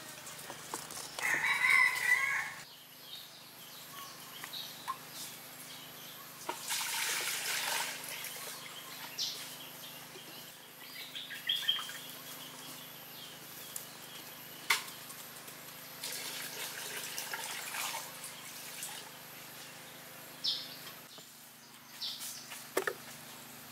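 A rooster crows once, loudly, about a second in, over faint small-bird chirps. Two longer stretches of hiss-like noise come later.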